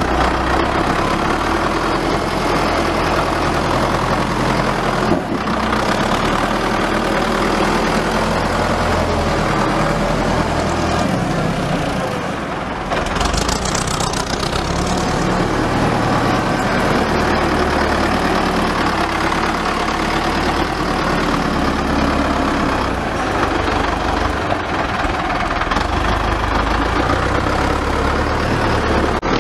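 Farm tractor's engine running steadily while the tractor pushes soil with a front dozer blade.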